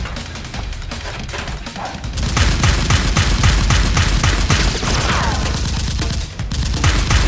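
Rapid automatic gunfire sound effects, shot after shot several times a second, getting louder about two seconds in, over background music.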